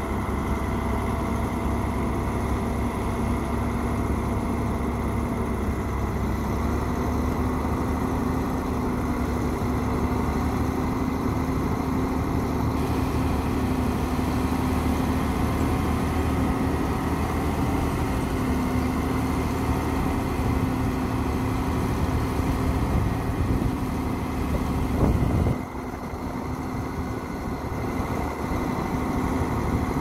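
Heavy dump truck's diesel engine running steadily, with a high whine, while the hydraulic hoist slowly raises the loaded bed to tip it; the engine note steps up slightly early on. Late on there is a short loud knock, after which the sound goes quieter.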